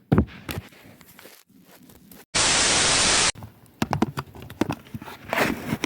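A burst of steady static hiss lasting about a second, starting and stopping abruptly a little over two seconds in. Faint clicks and handling knocks come before and after it.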